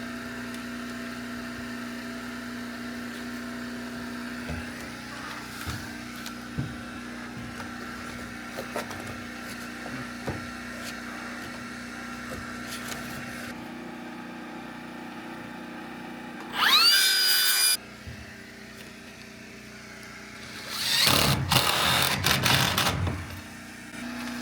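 A handheld power tool runs twice over a steady background hum: first a short run of about a second, its whine rising fast as the motor spins up and then holding, then a louder, rougher run of about two seconds near the end.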